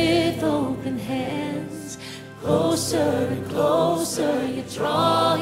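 Live contemporary worship music: lead singers and a choir sing long, held phrases over a band. The sound dips briefly a little past two seconds, then the next phrase comes in.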